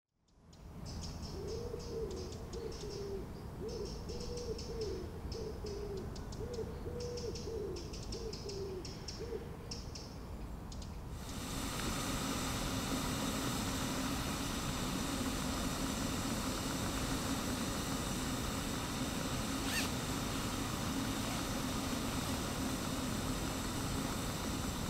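Repeated owl calls in a dark forest at night, along with faint high chirps. About eleven seconds in this gives way to a small camp stove heating a stainless steel kettle: a steady hiss with a low hum, and a single sharp click later on.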